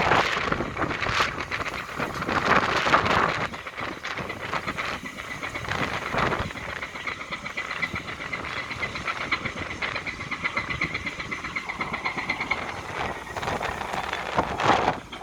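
Diesel engine of a small coastal sand and gravel carrier ship running, heard through strong wind buffeting the microphone. A pulsing high whine from the engine stands out in the middle, between gusts.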